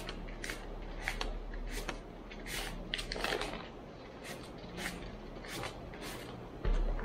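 Philippine peso banknotes being counted out by hand onto a table, a crisp paper flick or rustle each time a bill is laid on the pile, about one every half second to second. A single dull thump on the table comes near the end.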